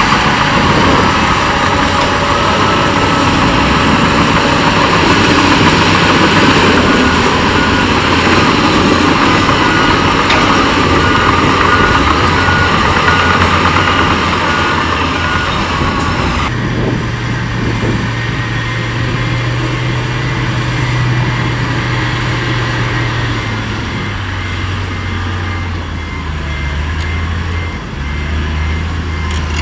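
Diesel engines of heavy earthmoving machinery running, with a reversing alarm beeping steadily in two stretches. The sound changes abruptly a little past halfway.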